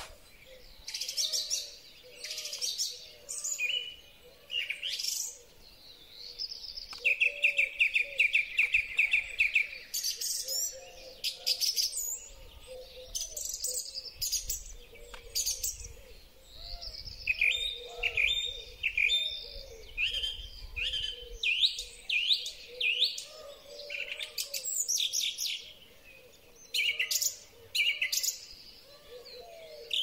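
Song thrush singing in short, separate phrases of clear and scratchy high notes. About seven seconds in comes a rapid run of one repeated note. A softer string of lower notes from another bird runs underneath.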